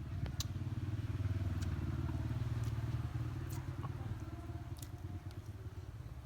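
A small engine running with a fast, even pulse, growing louder between about one and three seconds in and then easing off. A few sharp clicks sound over it.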